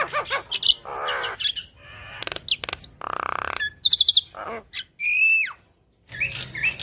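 Javan myna singing a varied chattering song of squeaky whistles and harsh buzzy notes, with a quick run of high pulsed notes about four seconds in and a loud falling whistle just after, then a brief pause.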